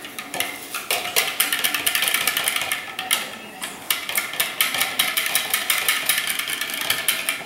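A utensil stirring hoisin-sauce marinade in a glass measuring cup, clicking against the glass in a quick, steady run of clinks.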